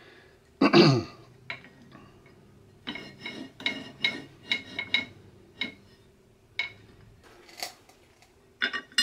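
Metal parts of a cast-iron bench vise clinking and ringing against each other as they are fitted by hand: a quick run of sharp clinks, then a few single ones. A brief loud low sound with a falling pitch comes about a second in, and a faint steady hum runs underneath.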